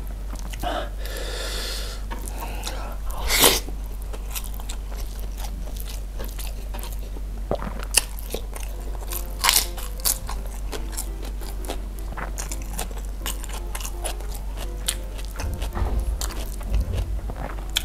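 Close-miked mukbang eating of honey-grilled chicken (ayam bakar madu) with rice, eaten by hand: biting and chewing, heard as a run of sharp mouth clicks and smacks, a few louder than the rest.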